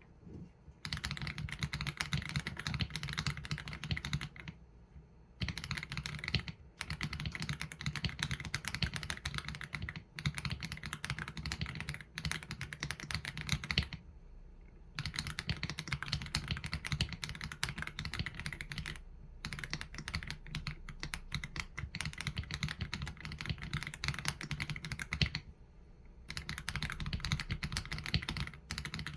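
Fast typing on an AULA F87 Pro mechanical keyboard with Leobog Graywood V3 linear switches and PBT keycaps: a dense run of key clacks in long bursts, broken by three short pauses.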